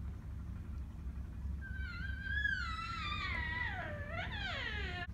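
A cat giving one long, drawn-out meow starting about a second and a half in, its pitch wavering up and then sliding down low, over a steady low hum.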